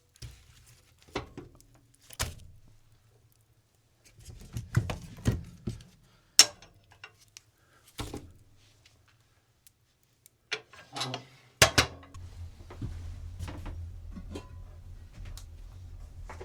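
Irregular knocks and clatters of objects being handled, a dozen or so spread unevenly, with two sharp loud knocks about six and a half and twelve seconds in. After the second knock a steady low rumble begins.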